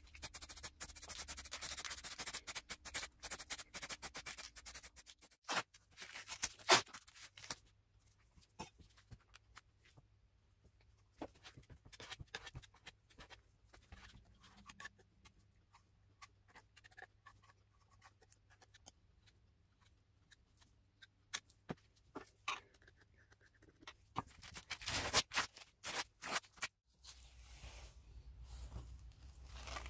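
Small workshop handling sounds: a stretch of hiss at the start, then scattered taps, clicks and scrapes of parts and tools being handled, with rubbing near the end.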